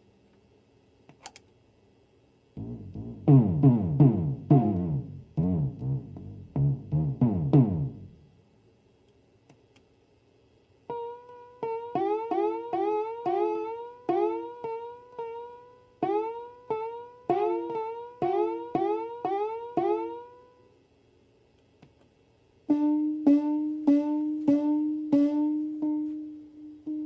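Modified Simmons electronic drum sound module playing synth drum sounds. About two and a half seconds in comes a dense flurry of low hits, each sweeping down in pitch. After a pause comes a run of short pitched electronic hits, about two a second, each with a quick bend in pitch. Near the end a steady held tone sounds with repeated hits over it.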